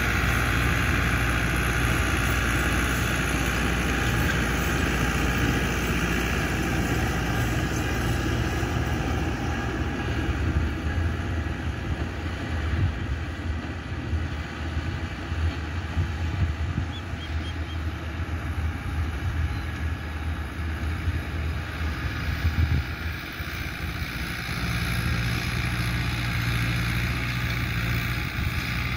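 Fiat 640 tractor's four-cylinder diesel engine running steadily under load, pulling a rotavator (rotary tiller) through the field. Wind gusts rumble on the microphone through the middle stretch.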